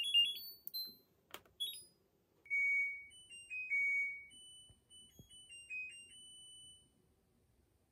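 LG TROMM front-loading washing machine beeping: a few short high button beeps in the first second and a half. Then, from about two and a half seconds in, it plays its short end-of-cycle tune of stepped beeps, signalling the wash is finished.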